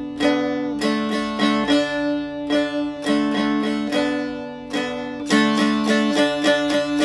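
A short tune played on a plucked dulcimer: a quick run of plucked notes over a steady drone, easing off briefly about five seconds in, then picking up with faster notes.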